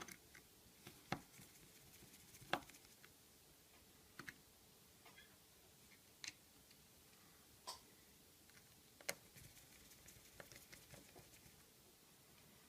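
Faint, irregular small clicks and taps of a small screwdriver working the screws on the metal plate inside an opened iPhone 5, about one every second or two.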